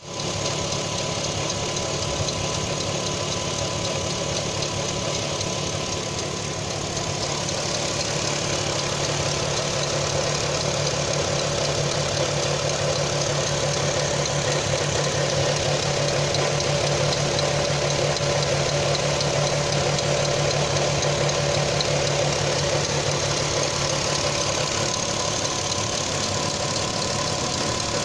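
Audi TT 3.2 V6 engine idling steadily with a distinct ticking from the front of the engine, which the owner doubts is the timing chains.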